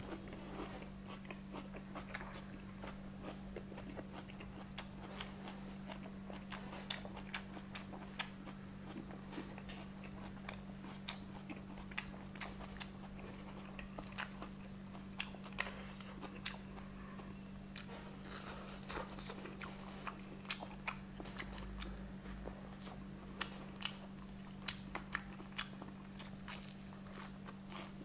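Close-miked chewing and crunching of crispy fried chicken, with many sharp crackles and mouth clicks, over a steady low hum.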